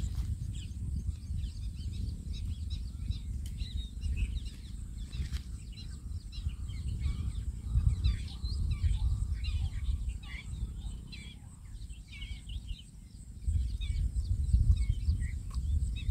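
Many birds chirping and calling over a steady low outdoor rumble, which dips briefly about twelve seconds in.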